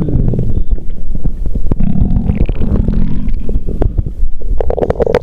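Loud stomach growling: low, uneven gurgling rumbles in waves, with many small pops and a higher-pitched gurgle near the end.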